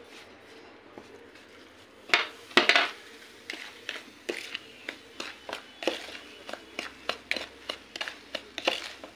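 A small spoon stirring and scraping a damp, gritty baking-soda and citric-acid mix in a plastic bowl. There are two louder scrapes about two seconds in, then a steady run of short scrapes several times a second.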